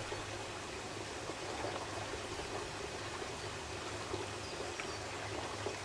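Steady running or trickling water, with a faint low hum underneath.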